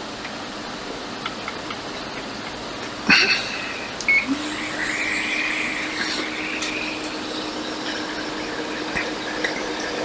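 A hot air rework station: a click and a short beep, then its fan blowing with a steady hum and an airy hiss as it heats the donor board to lift off the capacitors.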